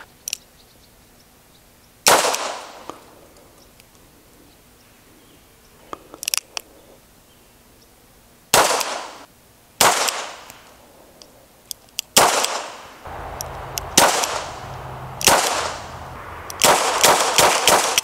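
Smith & Wesson 617-6 .22 Long Rifle revolver firing about ten shots, which empties its ten-round cylinder. The shots are single and spaced one to a few seconds apart, then come faster near the end as a quick string of about five.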